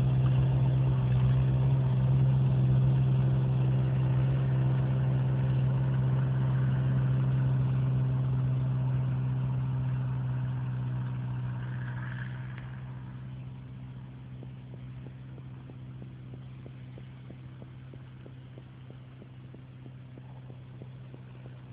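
Valpadana 3014 compact tractor's diesel engine running steadily while its front-mounted snow blower clears snow. The sound fades away between about ten and fourteen seconds in as the tractor drives off.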